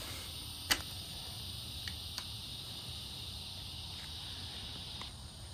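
Frame hinge latch lever of a Dahon Vybe D7 folding bike being pulled open: one sharp click a little under a second in, then a few fainter clicks. A faint steady high hiss runs underneath.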